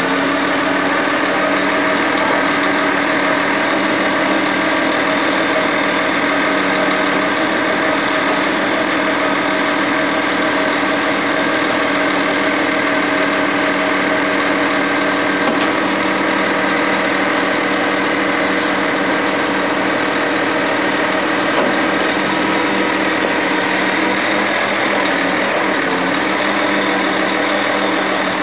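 Truck engine running steadily, driving the hydraulics of a Hiab XS 288E loader crane as its boom and jib are folded up; a constant engine-and-pump drone with no change in pitch.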